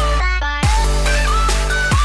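Electronic background music with heavy bass and a beat. About a quarter second in, the high end drops out briefly, and the full beat comes back with a bass hit just after half a second.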